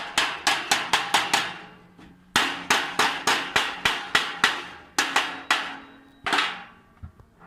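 A hammer striking steel in quick runs of sharp blows, about three a second, each ringing briefly. The blows stop for about a second near the middle, then come more spaced towards the end, with one last blow late on.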